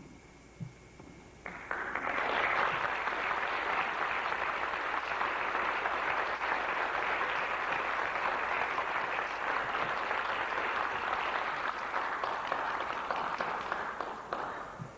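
Audience applauding: after a short quiet, the clapping starts about a second and a half in, holds steady, and fades out near the end.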